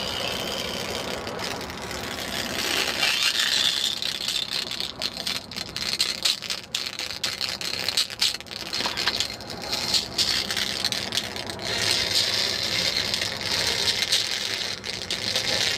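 Crackling, hissing electric arc between the end of a stranded overhead conductor and the dirt, driven by radio-frequency induction from a nearby AM broadcast tower. The arc acts like a plasma speaker, carrying the AM station's broadcast faintly inside the crackle. It is dense with sharp clicks and swells louder about three seconds in and again in the last few seconds.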